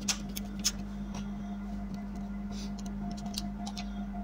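Light clicks and ticks of a small screwdriver driving tiny screws into a laptop's USB port board and metal casing. They come in a cluster in the first second and again past the middle, over a steady low hum.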